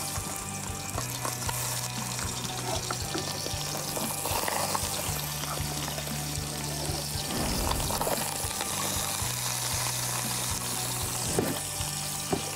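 Raw chicken pieces sizzling in hot oil in a pan as they are laid in to sear, a steady hiss with a few light clicks, over background music.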